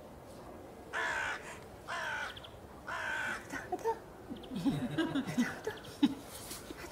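A crow cawing three times, about a second apart, with harsh calls. Soft low sounds follow, then a single sharp click near the end.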